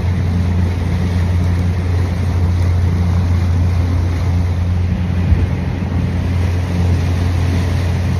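Motorboat engine running steadily with an even, low hum, over wind and water noise. A single brief thump about five seconds in.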